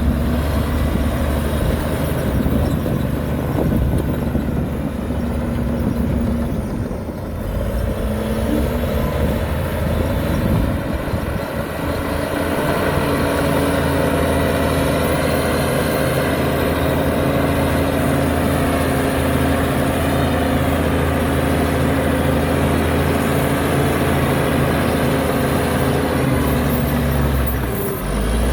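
Heavy diesel engine of earthmoving machinery running. Its note wavers and changes between about seven and twelve seconds in, then holds steady, with a brief dip near the end.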